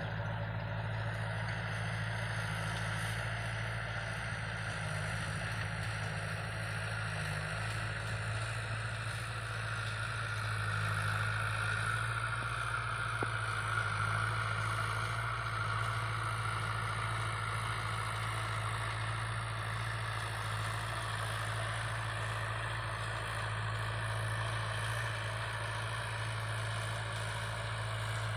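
Kubota L5018 tractor's diesel engine running steadily under load while driving a rotary tiller through dry paddy soil, a little louder around the middle.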